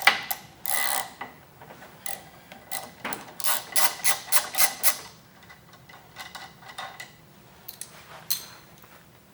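Wrench loosening and removing the 14mm crank nut from an exercise bike's crank arm: irregular metal clicks and short scraping strokes, with a quick run of them about three seconds in, then a few fainter clicks near the end.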